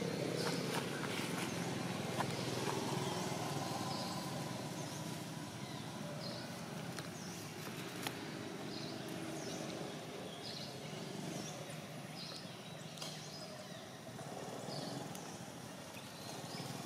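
Outdoor ambience: a steady low hum under short high chirps that repeat about once a second from a few seconds in, with a few light clicks.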